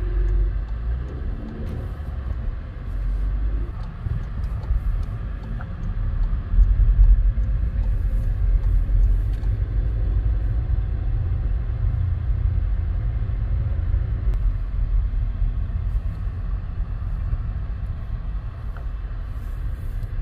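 A car driving slowly, heard from inside the cabin: a steady low rumble of engine and road noise.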